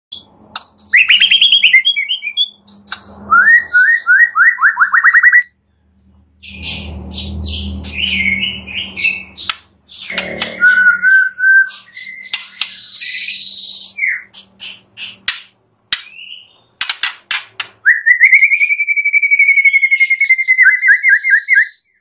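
White-rumped shama (murai batu) singing a loud, varied song of whistles, quick repeated notes and trills, broken by short pauses. A low rumble runs under the song for a few seconds. Near the end comes one long level whistle that breaks into a fast run of notes.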